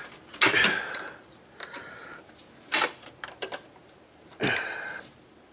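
Steel pick and screwdriver scraping and clicking against a steel snap ring as it is pried out of its groove in the AC receiver-drier's metal sealing plug. There are three louder scrapes with light clicks between.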